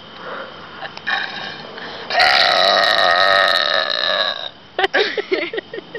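A woman's long, loud deliberate burp, starting about two seconds in and lasting about two seconds, holding a steady pitch.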